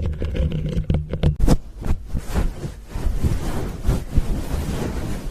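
A sponge squeezed and rubbed right against the microphone, giving a dense run of quick crackles over a low rumble.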